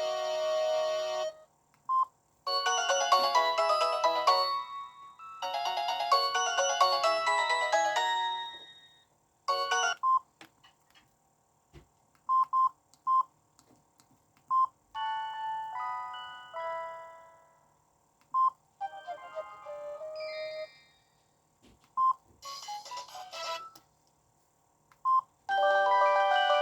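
Samsung SGH-E500 mobile phone playing a series of short melodic ringtones and message tones through its speaker, one after another with pauses between them, and short single beeps in the gaps.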